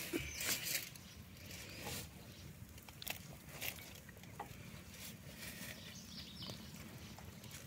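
Faint handling noises: scattered light clicks and soft rustles as a hand touches and pulls at a roasted whole chicken in a wire grill basket.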